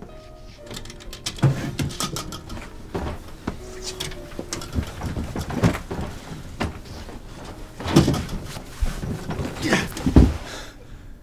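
Hurried packing: a dresser drawer handled, and clothes and belongings rustled and dropped into a suitcase, with irregular knocks and clicks. The loudest, heaviest thump comes near the end.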